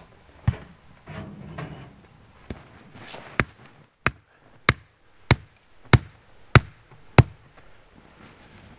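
Hatchet pounding a wooden stake into the ground to anchor the canvas tent's wall: sharp knocks, a few spaced strokes and then a steady run of about seven, roughly two-thirds of a second apart, ending a little past seven seconds in.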